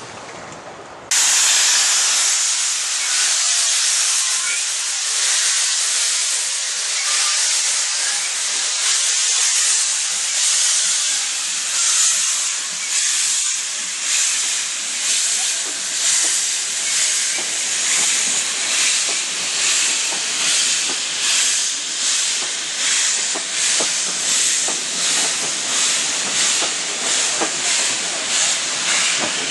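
Steam locomotive letting off a loud, high hiss of steam that starts suddenly about a second in and keeps going. In its second half the hiss swells and fades in a regular pulse, about once a second.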